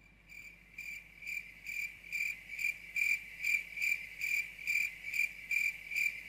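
Cricket chirping sound effect: a steady run of evenly spaced high chirps, about two and a half a second, fading in over the first two seconds. It is the comic "crickets" cue for an empty room where nobody answers.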